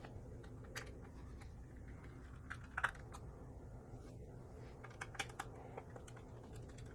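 Irregular small clicks and taps of a screwdriver and screws being worked on the hard-drive bay of an opened laptop, the loudest about three seconds in, over a low steady hum.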